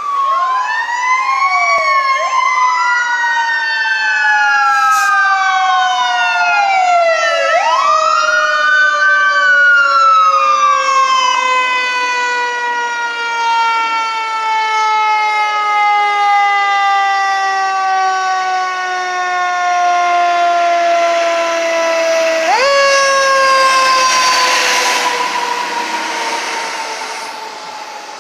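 Fire truck siren wailing as the ladder truck approaches and passes. It rises and falls several times, then sinks in one long, slow falling tone, and about 23 seconds in it jumps sharply back up. The truck's engine and road noise swell as it goes by near the end.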